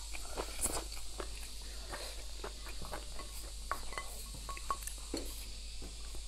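Close-up eating sounds: wet chewing, lip smacks and slurping of braised pork ribs and their side, with many quick clicks and light taps of wooden chopsticks against the plate.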